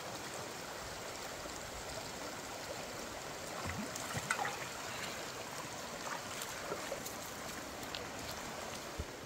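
Shallow rocky stream running with a steady rush of water, with a few light knocks and clicks about four seconds in and a couple more near the end.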